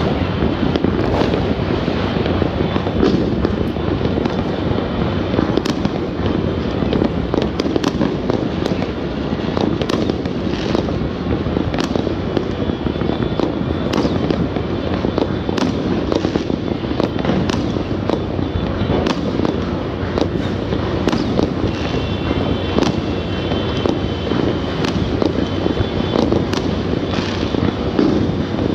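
Fireworks and firecrackers going off all over a city, heard from a distance: a continuous din of rumbling bangs with many sharp cracks and pops throughout.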